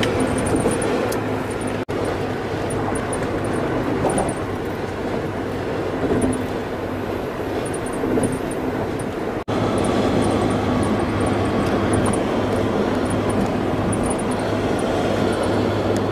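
Steady road noise of a car cruising on a highway, heard from inside the car: an even rush of tyre and wind noise over a low hum. It cuts out for an instant twice, about two seconds in and again just past the middle.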